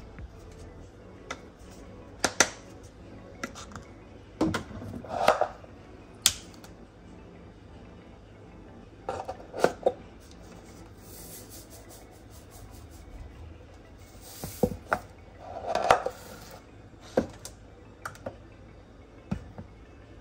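Plastic spice shakers and canisters handled on a kitchen countertop: set down and picked up with a scatter of sharp knocks and clicks, and two longer stretches of rattling as seasoning is shaken out.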